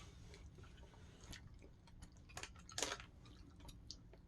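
Faint chewing of a hard, chewy gummy candy: scattered small clicks and mouth smacks, the strongest about three seconds in.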